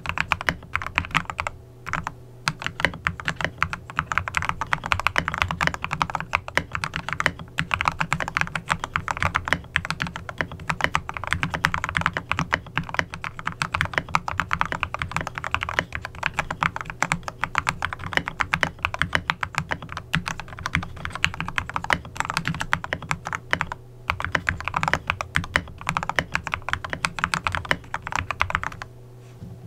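Fast continuous typing on a Royal Kludge RK98 mechanical keyboard with lubed Gateron Yellow Pro linear switches, a three-layer tape mod and XDA-profile keycaps: a rapid run of key presses. It pauses briefly about two seconds in and again near the end, and stops just before the end.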